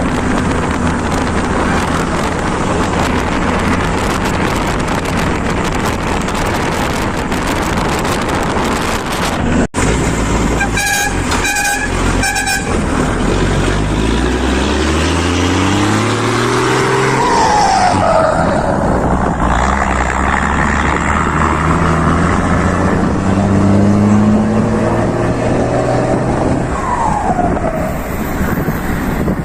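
Truck engine running under way with road noise. About ten seconds in, after a brief break, a quick run of short horn toots sounds. Then the engine revs up again and again, its pitch rising each time.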